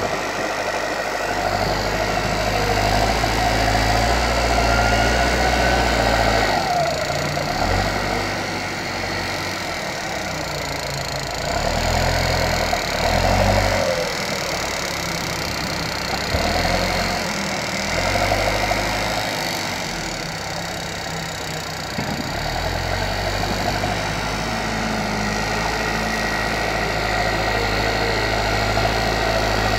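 Diesel engine of a heavy earthmoving machine working, its note rising and falling with the load; the deep rumble drops away and comes back several times.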